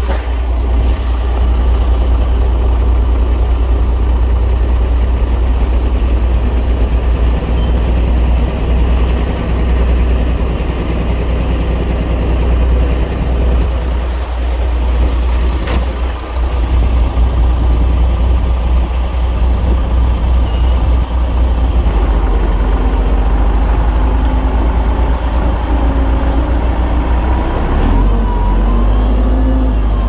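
Heavy diesel engine of earthmoving machinery running loud and steady with a deep low rumble. There is a single sharp knock about halfway through and a shift in engine pitch near the end.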